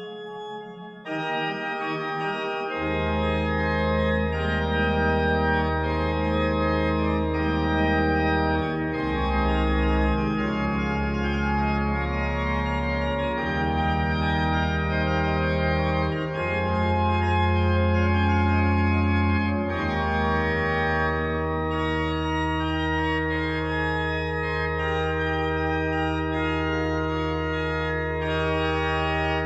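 Organ playing slow, sustained chords. Deep bass notes come in about three seconds in, and the harmony shifts every few seconds.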